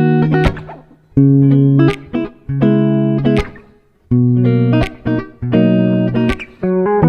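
Background music: plucked guitar playing short phrases of notes separated by brief pauses.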